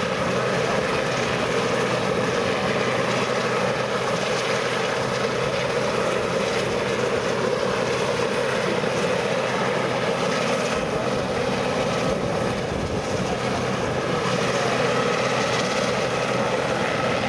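Westland Sea King search-and-rescue helicopter hovering, its twin turbine engines and main rotor running steadily.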